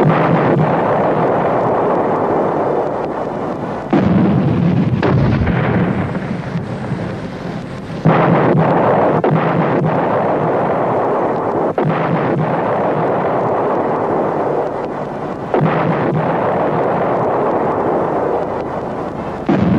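Artillery fire: a string of heavy booms a few seconds apart, each a sudden blast that trails off into a long rolling rumble.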